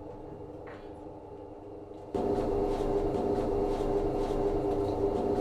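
Steady hum inside a lift car, jumping abruptly louder about two seconds in as the lift travels upward, with a low steady drone of several tones.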